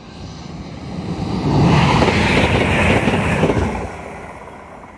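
A First TransPennine Express Class 185 diesel multiple unit passes at speed, engine and wheel noise building to a peak about two seconds in, then fading as it draws away.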